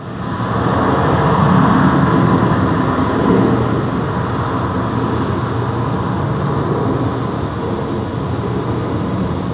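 A loud, steady, engine-like rumble with a low drone in it, rising in over the first second. It is the soundscape played with the projected warships at sea.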